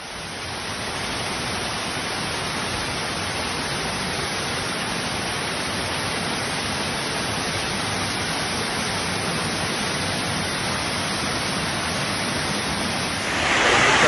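Wang Sai Thong waterfall's water rushing steadily over tiered rock cascades. The sound swells in over the first second and turns louder and brighter about a second before the end.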